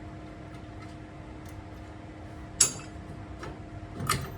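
Two sharp metallic clinks of small steel brake-caliper parts being handled, the louder about two and a half seconds in and a second near the end that rings briefly, over a steady hum.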